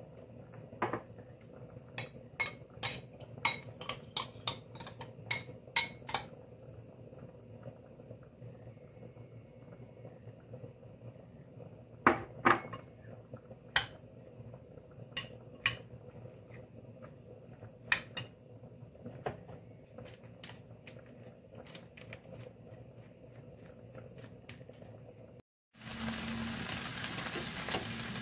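Metal spoon clinking and scraping against a ceramic bowl as a chickpea salad is stirred, in irregular sharp clinks. About 25 seconds in, this gives way to chicken pieces sizzling steadily in a frying pan.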